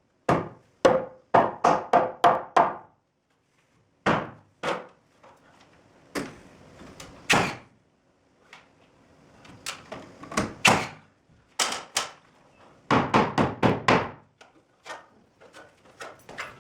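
Hammer blows on wood framing: runs of sharp knocks several a second, pausing between runs, the longest run near the end.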